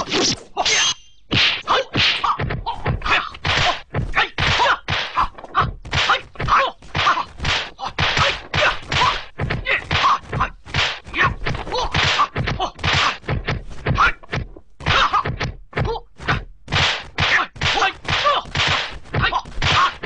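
A fast, unbroken run of sharp whacks and thwacks, about two or three a second with a short pause about a second in: the dubbed punch, block and weapon-clash sound effects of a Hong Kong kung fu film fight.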